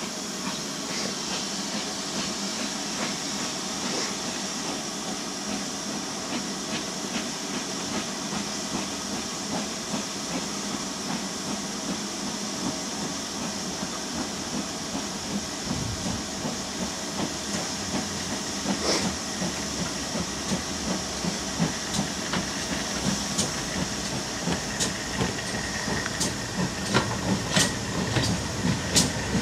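Steady hiss of steam from a standing GWR 52xx 2-8-0 tank locomotive. From about halfway, the wheel clicks of the approaching Manor class 4-6-0 Lydham Manor on the next line grow louder and come faster as it draws alongside.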